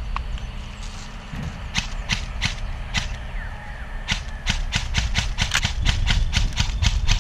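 Gas-blowback MP7A1 airsoft gun firing single shots: a few spaced shots, then a fast string of about five a second over the last three seconds. A steady low rumble runs underneath.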